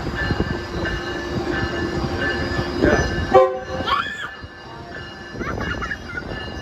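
Metrolink commuter train pulling into a station: a steady rumble with high, held squealing tones from the wheels and brakes, dropping suddenly quieter about halfway through.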